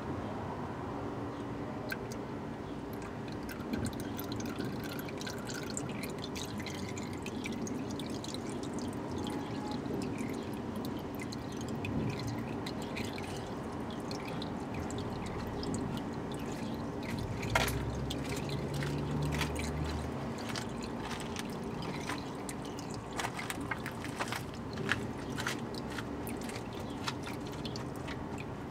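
Black used engine oil draining from the oil pan of a Komatsu 25's four-cylinder engine into a plastic drain pan, a steady trickle with many small splashing ticks. A brief low hum comes in about two-thirds of the way through.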